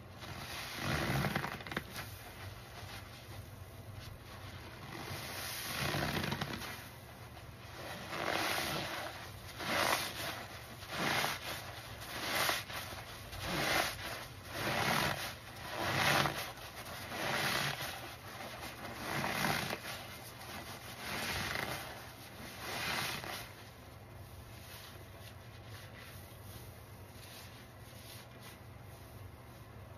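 Soapy sponge squeezed by hand in a basin of thick foam: wet squelching of lather and water in repeated squeezes, about one a second through the middle stretch, then quieter for the last several seconds.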